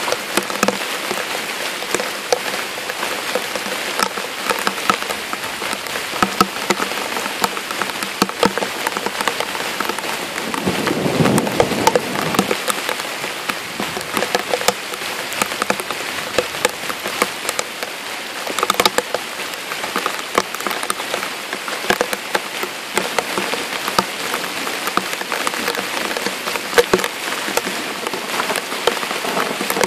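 Steady heavy rain falling on the forest floor and puddles, with many scattered sharp ticks and knocks. About eleven seconds in, a louder, deeper noise swells for about two seconds.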